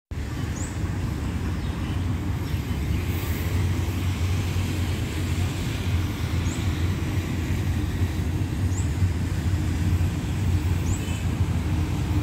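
Steady low rumble of distant road traffic, with four faint, short high chirps spread through it.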